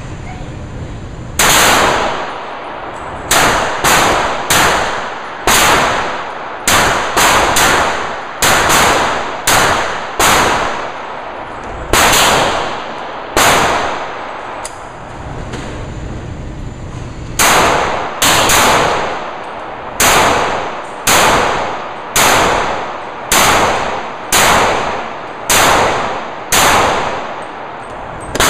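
Pistol shots, about two dozen fired at an uneven pace in quick strings with short pauses, each crack ringing out briefly behind it.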